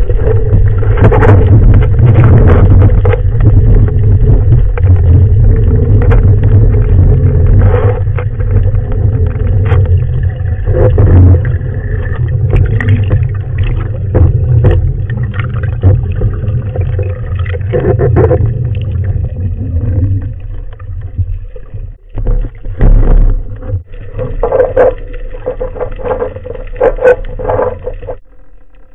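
Muffled underwater noise through a camera housing mounted on a speargun: a steady low rumble of moving water with frequent knocks and scrapes against the gun and housing.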